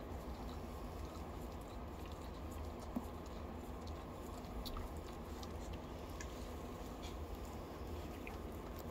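Steady low background hum of room tone, with a few faint scattered ticks and one soft knock about three seconds in.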